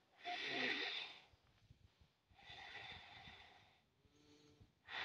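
A person breathing out hard twice, about two seconds apart, the heavy breaths of a medium in trance, with a faint short hum about four seconds in.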